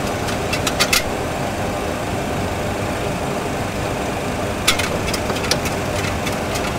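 Steady rumble of simulated engine and airflow noise in a Boeing 737 full flight simulator on approach with gear down and flaps 15. A few sharp clicks of cockpit switches and knobs come just under a second in and again about five seconds in.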